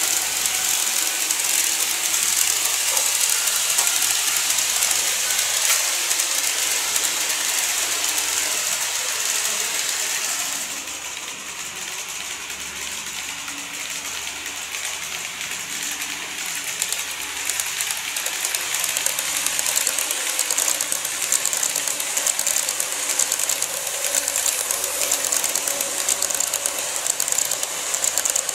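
KATO E231 series N-scale model train running on track: a steady rolling noise with a fast, fine clicking rattle of the wheels and mechanism. It drops off suddenly about ten seconds in, then builds again over the last several seconds as a train approaches.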